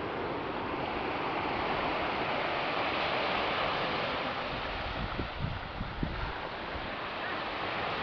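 Small waves breaking and washing up a sandy beach, heard as a steady rush of surf, with a few low bumps of wind on the microphone around the middle.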